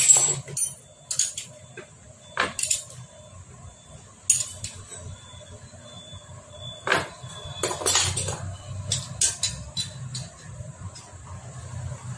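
Hand tools clinking and tapping against the metal casing and parts of a Hero Splendor Plus engine during assembly. There are a dozen or so sharp metallic clicks at irregular intervals, loudest at the start and around seven to eight seconds in, over a steady low hum.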